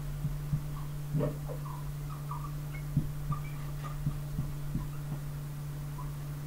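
Marker pen writing on a whiteboard: faint short squeaks and soft taps of the tip on the board, over a steady low hum.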